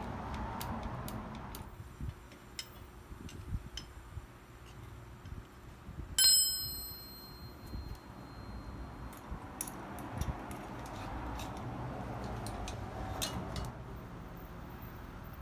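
Scattered small metallic clicks and taps from hand work on metal parts, with one loud ringing metal clink about six seconds in, like a tool or small part striking metal.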